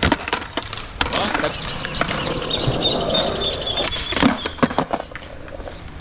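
Skateboard knocking on a concrete skatepark ledge: a sharp clack of the board right at the start and another about a second in, then wheels rolling on concrete. Voices and a high wavering call sound in the background.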